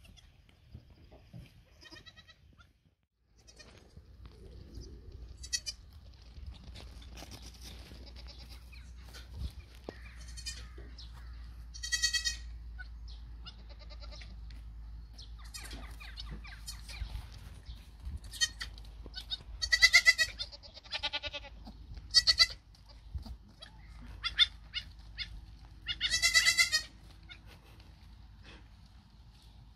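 Miniature goats bleating over and over, about a dozen separate high-pitched calls. The longest and loudest come in the second half. A low wind rumble on the microphone runs beneath them from a few seconds in.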